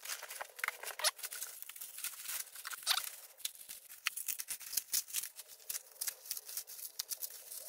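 Plastic bags and bubble wrap crinkling and crackling irregularly as they are handled and pulled open. A couple of sharper crackles come about one and three seconds in.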